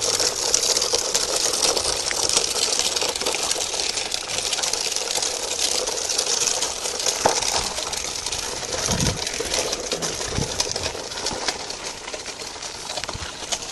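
Continuous scratchy rustling and crunching from a handheld recorder carried at a walk along a gravel path: footsteps on gravel and handling noise, with a couple of dull thumps about nine and ten and a half seconds in.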